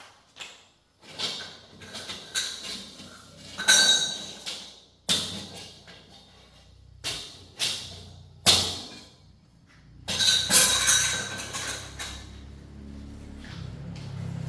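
Irregular metallic knocks and clinks, a dozen or so, several with a brief ringing tone, like metal parts or tools being handled and set down. A low steady hum comes in near the end.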